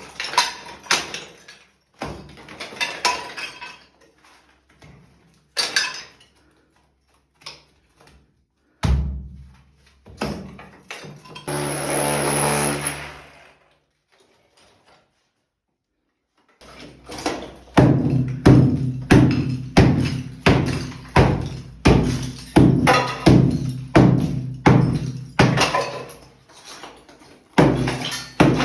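Scattered knocks and clatter, with a sustained whirring sound lasting about two seconds in the middle. After a brief silence, music with a steady percussive beat of about two strikes a second takes over.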